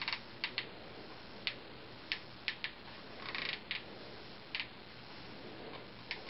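Irregular light clicks and taps, about ten in all, with a brief rustle about three seconds in.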